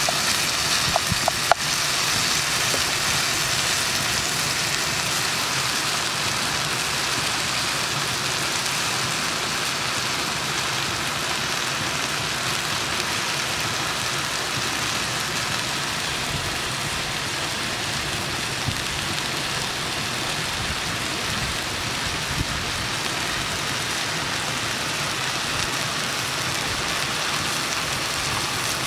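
Chunks of buffalo meat sizzling steadily in hot fat in a pot. A few sharp knocks about a second in as a wooden spatula stirs the meat.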